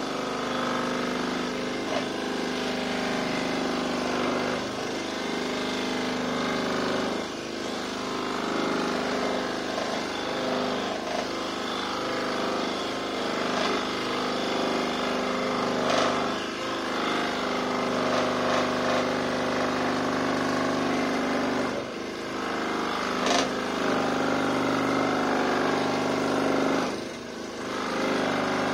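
Electric scroll saw running steadily, its reciprocating blade cutting slowly through a thick wooden board as the piece is fed and turned. The sound dips briefly a few times, about a quarter of the way in and twice near the end.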